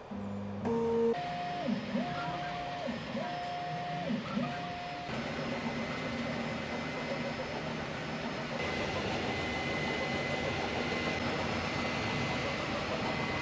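Qidi Q1 Pro CoreXY 3D printer starting a print. Its motors whine through four short moves of even pitch in the first few seconds, then settle into the steady whirr of printing. A thin high steady tone joins about nine seconds in.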